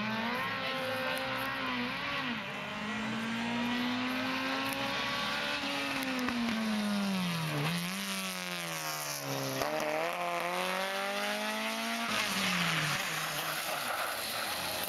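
Racing engines at high revs, the pitch climbing and dropping several times as they accelerate and brake through a cone slalom. A race-prepared coupé comes first, and a racing go-kart takes over near the end.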